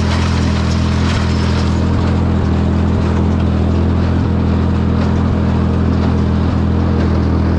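Ford 4000 tractor engine running steadily under load while pulling a hay baler, with faint knocks at a steady beat of a little under two per second beneath the engine note.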